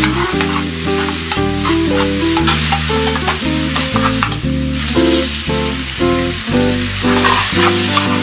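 Diced vegetables sizzling in hot oil in a frying pan as a slotted spoon stirs them, over background music whose steady notes change every fraction of a second.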